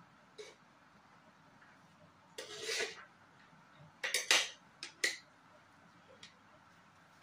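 Metal spoon scraping and clinking against the inside of a large metal cooking pot while mixing layered biryani rice: one longer scrape about two and a half seconds in, then a quick run of sharp clinks around four to five seconds.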